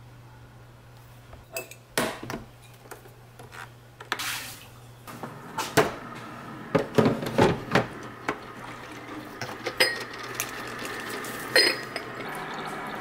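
Ceramic and plastic clicks and clinks as a mug, a coffee pod and a ceramic sugar-jar lid are handled at a pod coffee maker. Near the end the machine starts brewing with a steady hiss.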